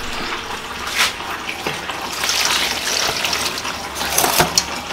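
Water poured from a bowl into a stainless steel pot of dried fish, a steady splashing pour that is fullest in the middle. A few sharp knocks come about a second in and again near the end.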